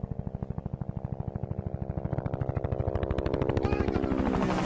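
Helicopter approaching, its rotor chopping fast and evenly and growing steadily louder.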